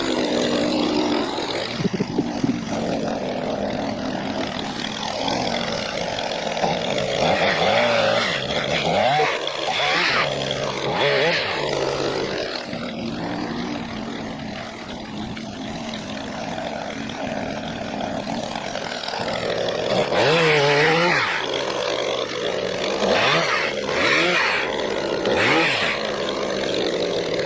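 Gas pole saw's small two-stroke engine running, revving up and falling back several times as it works.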